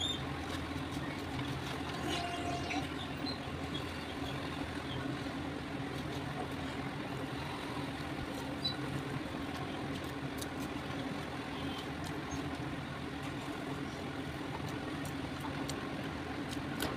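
Steady low mechanical hum throughout, with faint scattered light clicks.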